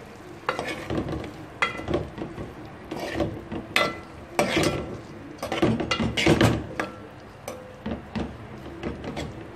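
A metal spoon stirring chopped vegetables and chicken in a metal cooking pot, scraping the bottom and clinking against the sides in irregular strokes, some with a short metallic ring.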